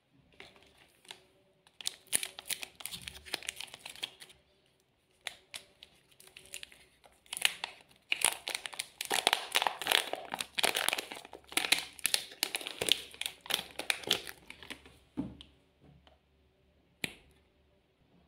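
A chocolate bar's plastic wrapper crinkling and tearing as it is opened by hand, in several bursts of crackling, the longest in the middle. A single sharp click comes near the end.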